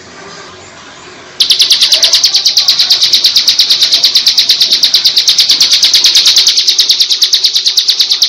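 Bar-winged prinia (ciblek) singing its 'ngebren' song: a loud, rapid, evenly pulsed high trill like a drill. It starts abruptly about a second and a half in, after faint background sound.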